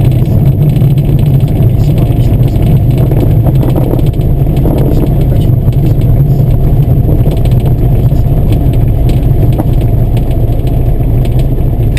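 Light single-engine propeller aircraft's engine running at low taxi power, a loud steady drone with the propeller turning.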